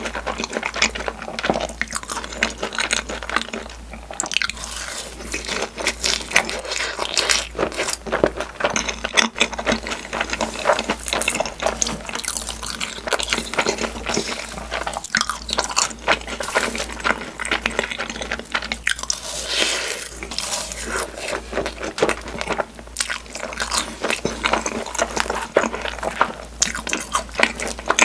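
Close-miked chewing and biting of takoyaki (octopus balls), a steady run of small clicks and mouth noises.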